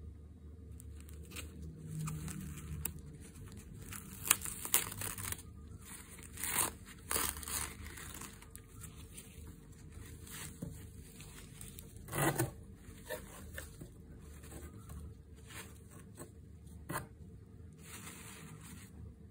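Paper packing rustling and crinkling as gloved hands handle paper towel and crumpled newspaper in a cardboard box, irregular, with a few sharper crackles.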